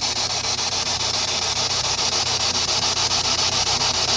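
Ghost-hunting spirit box sweeping through radio stations: a steady hiss of radio static, chopped in a fast, even rhythm, with no voice coming through.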